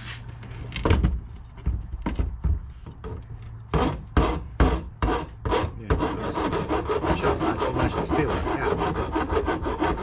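Several knocks and clatters, then from about six seconds in a steady, rapid scraping or rasping.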